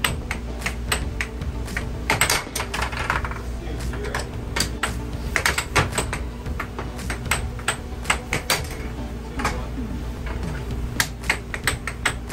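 Air hockey puck clacking against mallets and table rails in quick irregular volleys, over a steady low hum.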